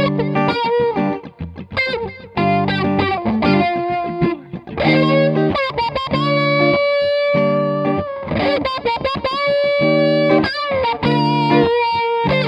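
Two electric guitars jamming funky, rhythmic chord stabs and riffs through a SolidGoldFX Supa Funk envelope filter, the tone sweeping like an auto-wah as each note is picked.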